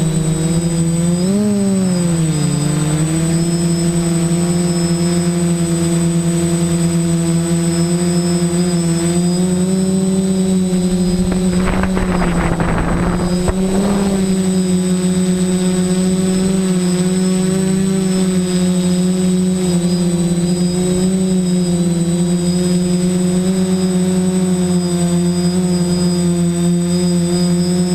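A DJI quadcopter's electric motors and propellers buzz steadily at close range. The pitch wavers up and down in the first few seconds, then holds steady, with a thin high whine running throughout. About twelve seconds in comes a rough rushing burst lasting around two seconds, like wind buffeting or a sharp throttle change.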